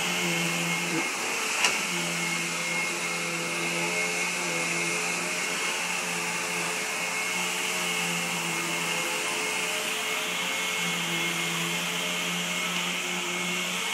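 Upright vacuum cleaner running steadily as it is pushed over carpet, a constant motor hum and airflow hiss. A single sharp click sounds just under two seconds in.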